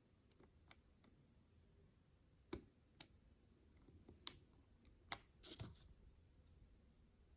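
Small sharp plastic clicks as an arrow keycap is pressed and snapped onto its clips on an Apple Magic Keyboard for iPad: about six separate clicks, the loudest about four seconds in, with a short scratchy rustle a little after five seconds.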